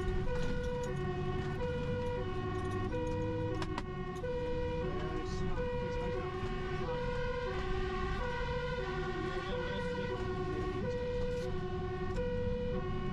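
Fire engine's two-tone siren sounding continuously, alternating evenly between a high and a low note, heard from inside the truck's cab over the engine and road rumble while it runs to an emergency call.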